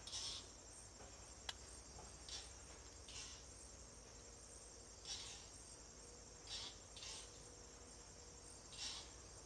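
Faint insect chorus: a steady high-pitched drone with short, hissy chirps every second or two, and a single sharp click about a second and a half in.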